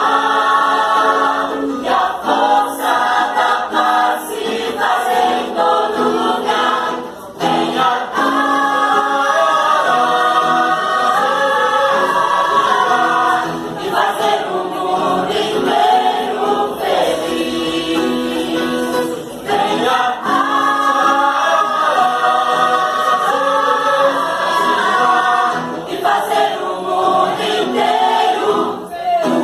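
A choir singing, holding long notes in phrases, with short breaks between them.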